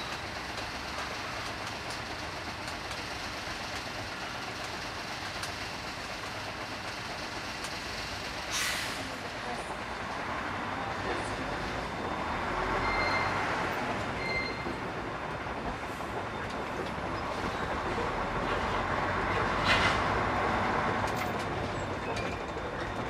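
Inside a container truck's cab: a steady rumble of the diesel engine and road noise as the truck rolls slowly. A short hiss comes about nine seconds in, and two brief high beeps come a little later.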